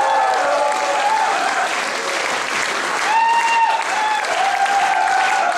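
Theatre audience applauding at the end of a song, with a few voices calling out over the clapping from about three seconds in.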